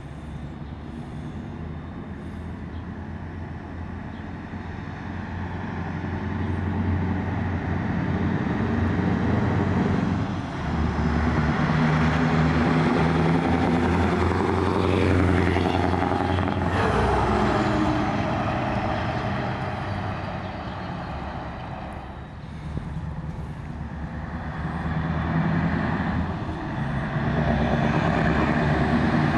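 Scania 143 M 500 truck's V8 diesel engine approaching and driving past, growing louder and then dropping in pitch as it goes by about halfway through. The engine fades away, and a truck engine builds again near the end.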